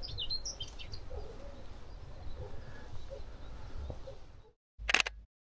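Small birds chirping a few times in the first second over a steady low rumble. The sound then drops out, and a short loud burst comes near the end before total silence.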